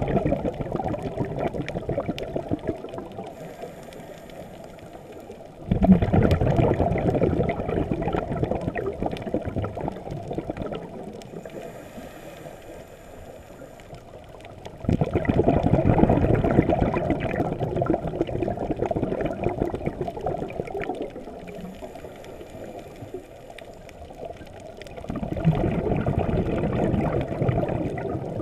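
Scuba diver's breathing through a regulator, heard underwater: a burst of exhaled bubbles about every ten seconds, starting sharply and lasting a few seconds, with a faint hiss of inhalation between them.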